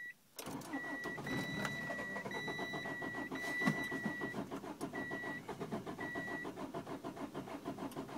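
1991 Acura Integra's engine cranking on the starter motor in a fast, even rhythm without catching, a car that will not start. A high electronic beep sounds on and off over the first six seconds or so.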